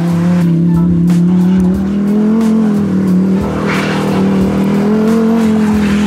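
Lamborghini Huracán Performante's V10 engine running at fairly steady revs that rise and fall gently as the car drifts on snow.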